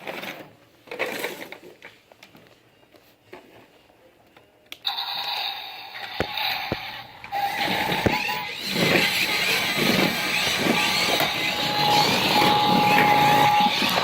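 Small clicks and handling rustle, then about five seconds in a battery toy police car starts its electronic sound effects through a tiny speaker: a loud, thin, busy run of engine and siren-like noise with a held tone near the end.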